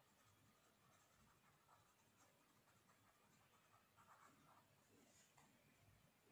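Faint, irregular scratching of a colour pencil shading on paper.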